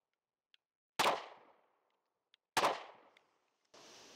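Two pistol shots from a compact Smith & Wesson carry pistol, about a second and a half apart, each dying away quickly.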